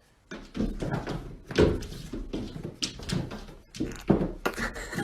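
A run of irregular knocks and thumps, starting about a third of a second in.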